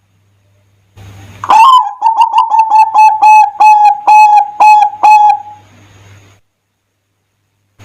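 Zebra dove (perkutut) singing one song phrase: a rising opening note, then a quick run of about a dozen clear, even-pitched coos, roughly three a second, fading out. This is the song of a gacor (freely singing) perkutut, the kind played as a lure to set other zebra doves singing.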